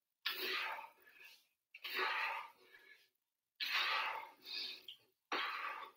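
A man's heavy breathing under exertion during kettlebell upright rows: four hard exhalations, each starting sharply and trailing off, about one every 1.7 seconds in time with the reps.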